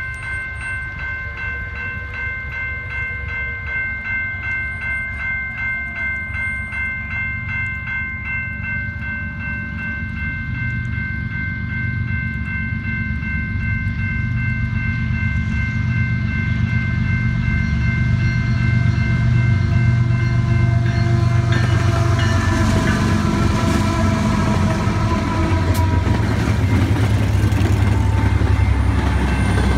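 Railroad crossing bell ringing in a steady, even pulse while a freight train's diesel locomotives approach, their engine rumble growing louder. From about two-thirds of the way in, the Canadian Pacific lead locomotives and cars pass close by, with loud engine and wheel-on-rail noise.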